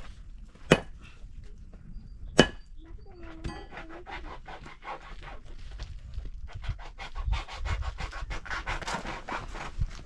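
Sledgehammer striking a large stone twice, about a second and a half apart, each blow a sharp ringing clang. Then a long run of rapid scraping and clattering as broken rock is shifted and lifted.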